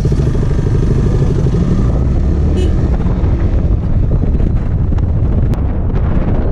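Motorcycle engine running as the bike pulls away and picks up speed. About halfway through, its note gives way to wind noise rushing over the microphone.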